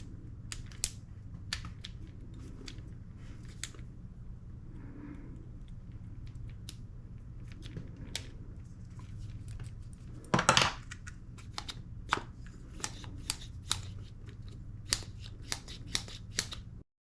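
Scattered small clicks and taps of parts being handled while a spring is fitted into the nozzle of a gas blowback airsoft rifle, with a louder clatter about ten and a half seconds in, over a steady low hum. The sound cuts off just before the end.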